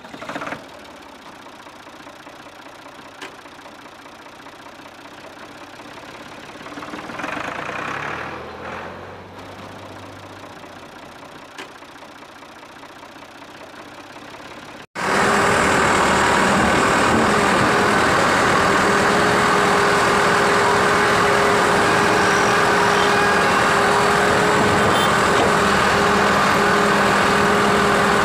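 Faint low sounds for about fifteen seconds, then an engine idling sound cuts in abruptly and runs loud and steady, with a constant hum.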